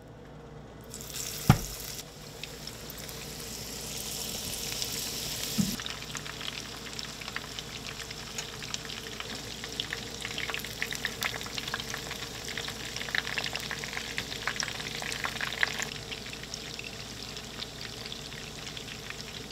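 Panko-and-Parmesan-breaded fish pieces frying in hot peanut oil in a pan, a steady crackling sizzle of many small pops. A single sharp knock comes about a second and a half in.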